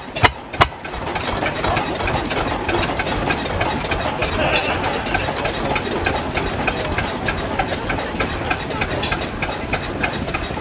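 Deutz stationary diesel engine running on a cold start. A few loud, widely spaced exhaust beats come in the first second, then from about a second in it runs steadily at a quicker, even beat.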